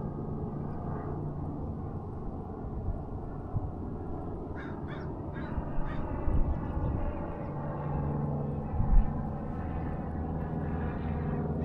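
A steady low engine drone, with a few short bird calls about five to six seconds in.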